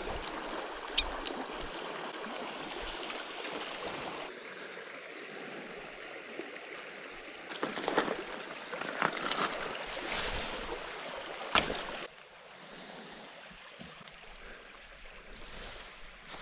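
Small creek running over rocks: a steady rush of water, with a few short knocks and rustles close by. The level drops abruptly about four seconds in and again around twelve seconds.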